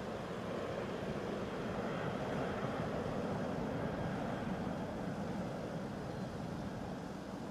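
C-17 Globemaster III's jet engines droning steadily in flight, a constant rushing rumble with a faint high whine.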